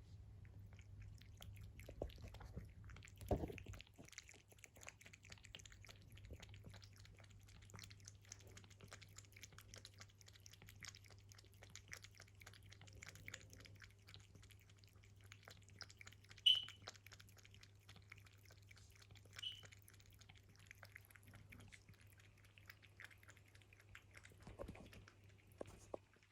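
Faint cat chewing: rapid fine crackles and clicks throughout, with a few soft thumps and two short high peeps about two-thirds of the way in.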